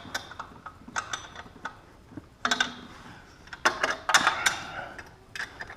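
Hand tools working on the exhaust downpipe bolts: a socket ratchet clicking and metal clinking and scraping, in two louder bursts about two and a half and four seconds in, as the bolts are worked loose.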